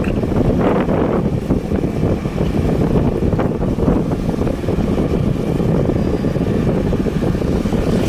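Steady rumble of wind buffeting the microphone, mixed with the noise of a moving vehicle on the road.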